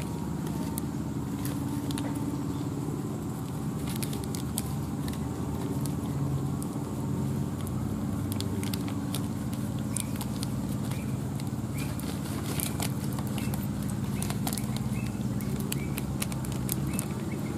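Steady low hum of a running engine, with light, scattered crackling clicks from the plastic sheet as hands press and fold dough on it.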